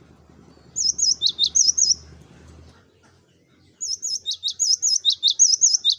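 Cinereous tit singing: two phrases of quick, repeated high whistled notes that dip and rise in pitch. The first phrase starts about a second in; the second starts near four seconds in.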